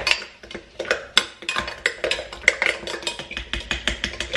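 A spoon stirring sugar through strawberry purée in a glass blender jug, clinking against the glass about four times a second.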